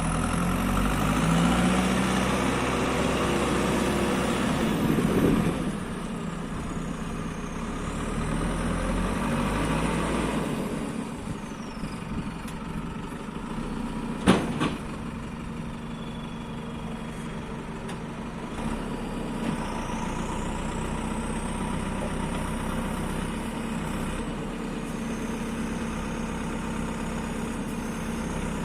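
JCB 3CX Super backhoe loader's four-cylinder diesel engine running. Its speed rises in the first few seconds and swells again a little later, with a single sharp clank about halfway through, then it settles to a steady idle.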